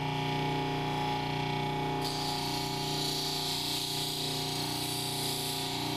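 Electric flat lap running with a steady motor hum. About two seconds in, the labradorite cabochon is pressed onto the spinning 2000-grit sanding disc and a steady grinding hiss starts, the stone being smoothed toward its final finish before polish.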